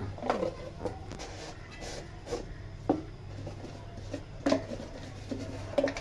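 Several light knocks and clicks at irregular intervals over a steady low hum.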